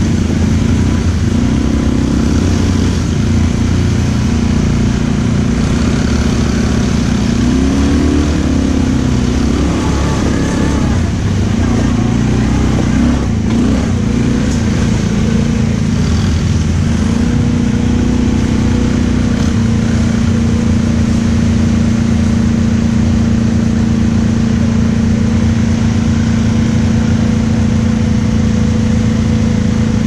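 ATV engine running under way, with a heavy low rumble. Its pitch rises and falls with the throttle about eight seconds in, then holds steady through the second half.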